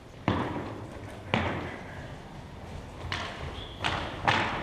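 Floor hockey sticks cracking against a plastic ball and the hardwood floor, echoing in a gym: two sharp knocks in the first second and a half, then three more in quick succession near the end.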